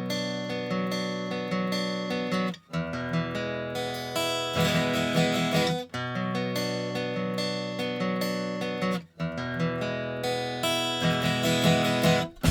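Background music led by strummed acoustic guitar, in phrases of about three seconds with short breaks between them.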